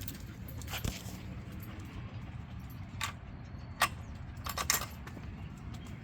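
Small metal pieces jingling in a few short, separate clinks, the loudest nearly four seconds in and a quick cluster just after, over a steady low rumble.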